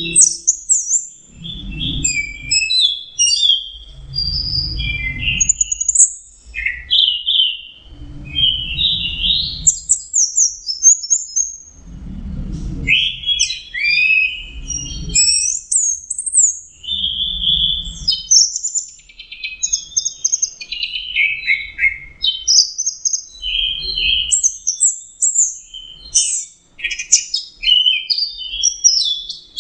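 Orange-headed thrush singing a long, varied song of quick, rich phrases that jump in pitch, with almost no pause between them.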